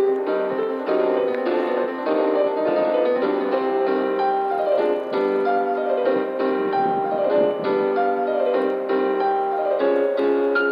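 Piano music: a continuous melody of struck notes over sustained chords.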